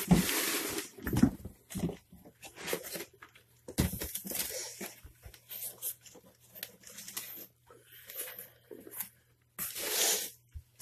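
Irregular bursts of rustling and crinkling as the packaging of a superworm shipment is handled, with short quiet gaps between them.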